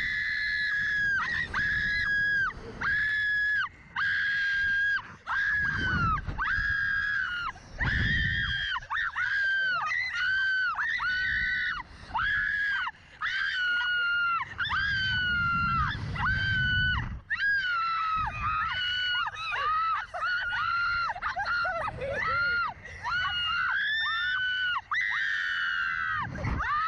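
Two riders screaming on a SlingShot reverse-bungee catapult ride, one long high-pitched scream after another with only short breaths between.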